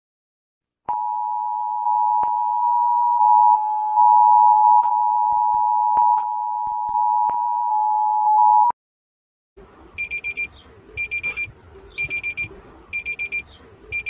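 Emergency alert alarm: the attention signal, two steady tones sounded together, runs for about eight seconds with scattered clicks through it and cuts off. After a short gap, a second alert starts: short groups of rapid high beeps, repeating about once a second over a low hiss.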